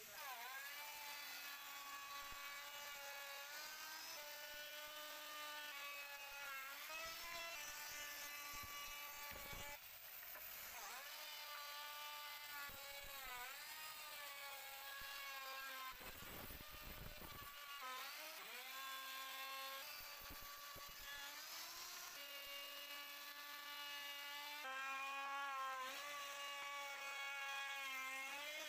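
Handheld electric plunge router running, its motor whine dipping in pitch and climbing back again and again as the bit cuts into the wooden door frame.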